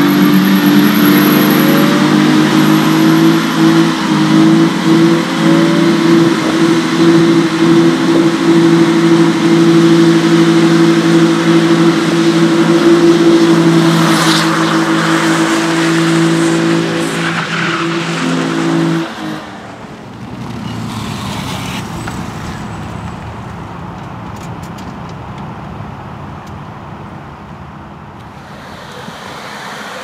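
Lexus sedan engine held at high, steady revs in a stationary burnout, with the hiss of spinning tyres over it. About 19 seconds in the revs drop off sharply and only a much quieter background remains.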